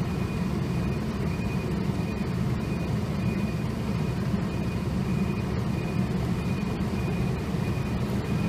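Steady low rumble of street traffic, with a Hankai tram approaching in the distance.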